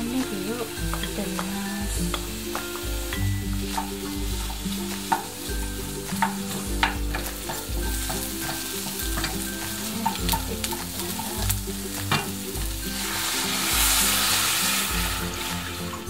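Sliced onions sizzling as they fry in butter in a stainless steel pan, with a wooden spatula tapping and scraping against the pan as they are stirred. The hiss swells louder near the end.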